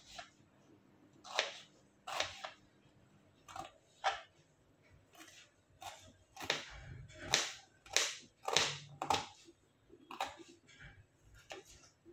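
Kitchen knife cutting a small onion on a plastic chopping board: irregular knocks of the blade through the onion onto the board, roughly one a second, coming faster and louder a little past the middle.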